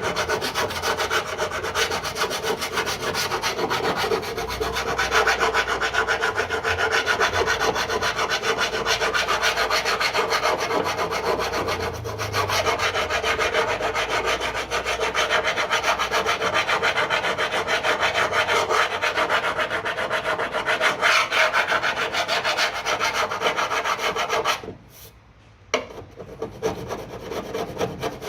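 Body filler on a steel door sill being flatted by hand with an abrasive sanding block: a continuous rough rubbing of quick back-and-forth strokes, broken by a short pause about 25 seconds in.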